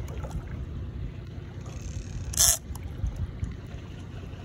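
Wind rumbling on the microphone, with one short, loud hiss about halfway through.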